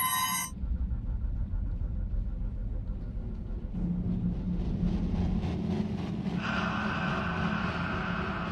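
Low rumbling drone of a drama's suspense background score, with a brighter, higher layer coming in about six seconds in.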